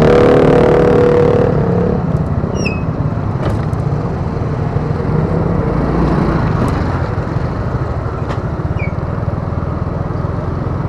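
Motor scooter engine running as the scooter rides off over a rough road, a steady low rumble; a louder, higher engine note eases off about a second and a half in. A few short clicks and two brief high chirps sound over it.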